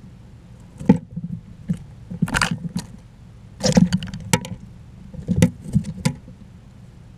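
Small rodent, a chipmunk or squirrel, rummaging at a feeder close to the microphone: irregular clusters of scratches, knocks and rustles. They start about a second in and stop about six seconds in.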